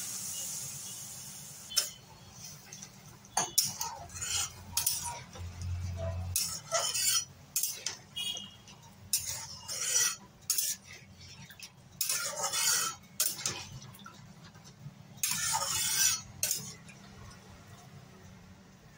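Water poured into a hot kadai of spice-fried vegetables hisses at the start and fades over the first couple of seconds. Then a metal spatula stirs and scrapes against the metal kadai in short, irregular strokes, stopping near the end.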